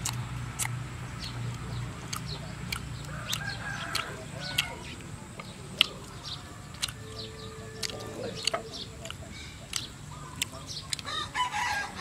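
Chickens clucking and a rooster crowing in the background. Close eating sounds run over it: many sharp clicks of chewing and chopsticks.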